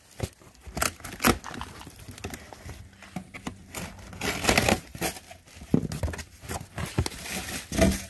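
Box cutter slicing the packing tape on a cardboard box, then the flaps being pulled open: a run of irregular rips, scrapes and crinkles of tape and cardboard.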